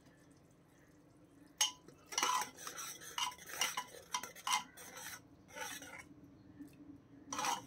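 A spoon stirring thick masala in an aluminium pressure cooker, scraping and knocking against the pot's side in a run of irregular strokes that starts about a second and a half in, with one more stroke near the end.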